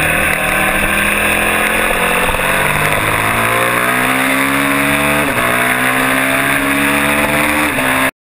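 Kawasaki mini twin race bike's twin-cylinder engine under acceleration heard from an onboard camera with heavy wind noise: the revs climb, drop sharply with an upshift about five seconds in, climb again and shift once more near the end, then the sound cuts off abruptly.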